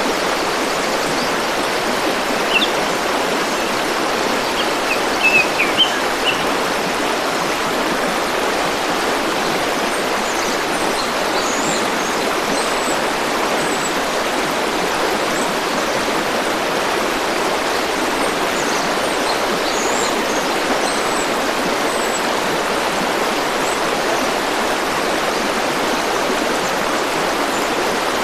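A river stream flowing with a steady rushing sound. A few short bird chirps come over it in the first six seconds, and fainter, higher calls come now and then later on.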